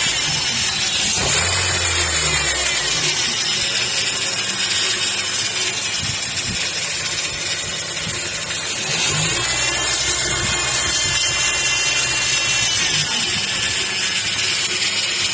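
Car engine running with a whining noise from a faulty power steering pump near the alternator. About nine seconds in the whine rises in pitch, holds for a few seconds and drops back.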